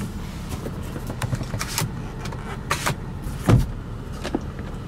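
Light clicks and knocks of hands handling fittings in a car cabin over a steady low hum, with one heavier thump about three and a half seconds in.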